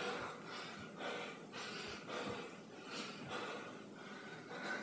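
A man breathing hard during a jumping exercise: quick, rhythmic breaths and puffs of exhaled air, with faint thuds of his feet landing.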